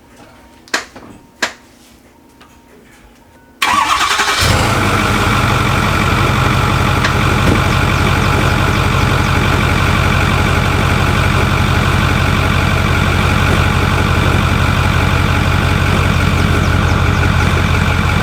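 A couple of sharp clicks, then about three and a half seconds in a Ford F350 turbo diesel engine starts and settles into a steady idle. The horrible noise it has made since its pulleys were changed is still there: the new tensioner has not cured it.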